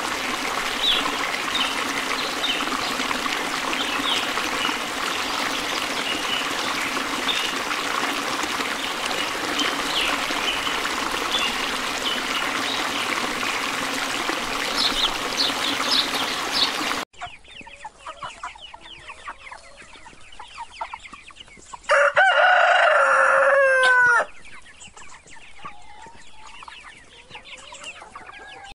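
A stream running steadily, with short high chirps over it. After a sudden change about two-thirds in, chicks peep, and then a rooster crows once, loud, for about two seconds, ending in a falling glide.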